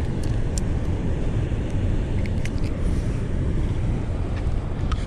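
A steady low outdoor rumble, like wind on the microphone or distant rushing water, with a few faint clicks from handling fishing tackle.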